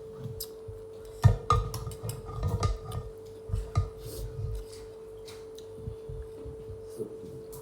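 Close-up eating sounds: chewing and a few clicks of utensils against a dish during a meal of chicken soup and rice, mostly in the first half, over a steady high-pitched hum.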